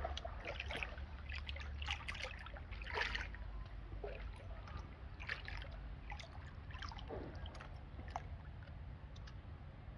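Water splashing and trickling in an irregular, uneven way, over a steady low rumble.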